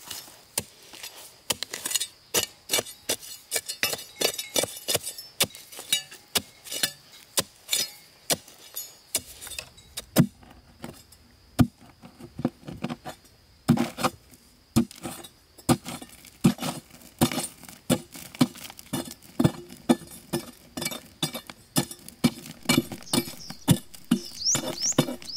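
Hand tool striking wood over and over in an even working rhythm, two to three sharp blows a second, each with a short bright ring.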